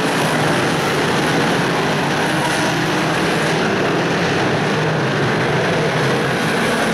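A pack of big-block V8 modified dirt-track race cars running at racing speed, their engines blending into a loud, steady drone.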